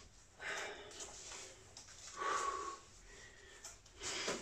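A man's heavy breathing while holding an exercise under exertion: three separate breaths, each a rush of air, the middle one with a faint whistling tone.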